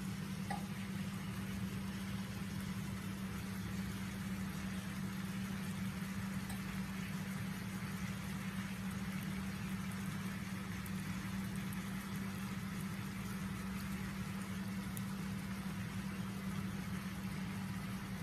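Steady machine hum with an even hiss underneath, unchanging throughout, like a fan or motor running in the kitchen.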